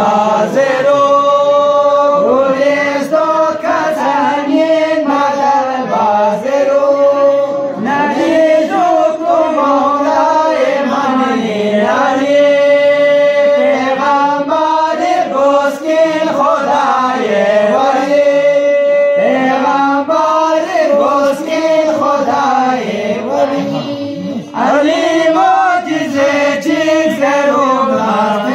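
A group of men chanting a song together in unison into microphones, unaccompanied, with long held notes.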